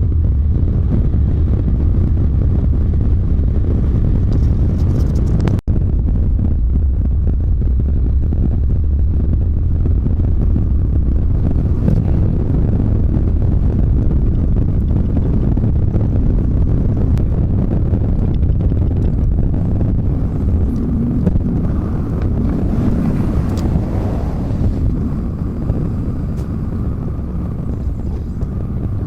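Volvo semi-truck running down the road: a steady, loud low engine drone with road noise, cut by a brief dropout about five and a half seconds in.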